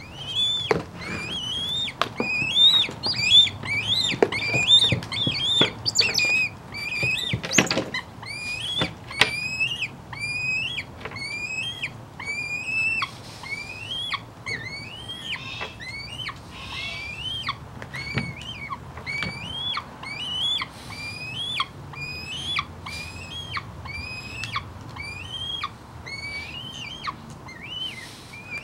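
A downy young white goshawk (tiercel) calling over and over, each call rising then dropping. The calls come about two a second at first and a little slower later, with a few sharp knocks about eight seconds in. It is the insistent begging cry of an eyass hawk wanting food.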